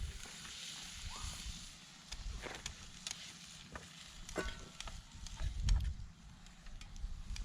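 Food frying faintly in a pan, most likely diced chicken, with scattered clicks and taps of a utensil stirring it. A few low thumps of handling come about two-thirds of the way in.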